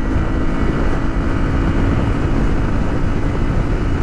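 Moto Guzzi V7 III's air-cooled V-twin running flat out near its top speed of about 190 km/h, a steady engine drone under heavy wind rush.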